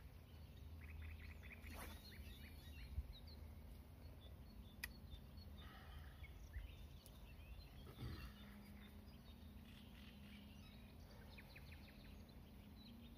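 Quiet outdoor ambience at the waterside: faint bird chirps and calls in short runs over a low wind rumble, with a couple of sharp clicks.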